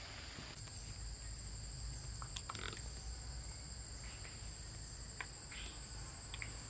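Steady high-pitched insect drone, several insects calling at once in forest undergrowth, with a few faint clicks.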